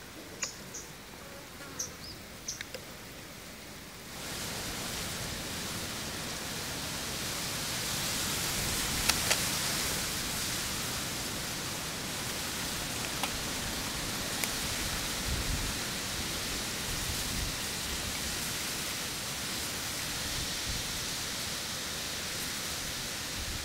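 A few short, faint high chirps over quiet outdoor ambience. About four seconds in, this changes suddenly to a steady, fairly loud hiss. Occasional light clicks sound over the hiss, as a small plastic hook packet is handled.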